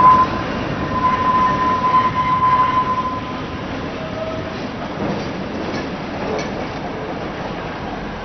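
Tram running on street track, with a steady high-pitched wheel squeal for about the first three seconds, then a quieter rumble of wheels on rails.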